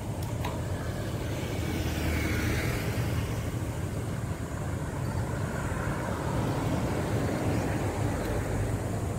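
Road traffic noise beside a wide city road, over a steady low rumble: a vehicle sweeps past about two to three seconds in, and another fainter pass follows around five to seven seconds in.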